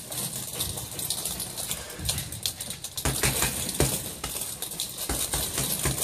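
Boxing gloves striking hanging heavy bags in quick, irregular combinations: a run of sharp hits, several a second.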